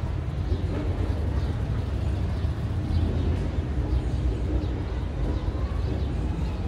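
Steady low rumble of outdoor ambience, with no distinct events standing out.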